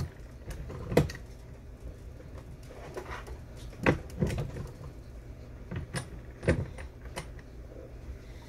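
Scattered sharp metal clicks and clunks, about seven of them, from a single-stage reloading press as a brass 300 Winchester Magnum case is set in the shell holder, run up into the full-length resizing die and brought back out.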